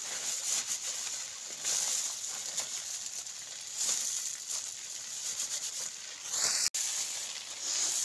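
Dry stalks rustling and crackling as they are gathered and handled by hand on a plastic sack, in uneven bursts.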